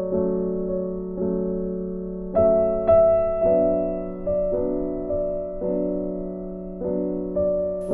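Background piano music: slow, gentle chords, a new one struck about every second and left to ring and fade.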